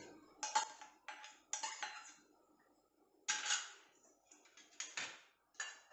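Steel spoon scraping chopped green chillies out of a small stainless steel bowl, with the bowls clinking against each other: a string of short metallic clinks and scrapes, the longest about three and a half seconds in.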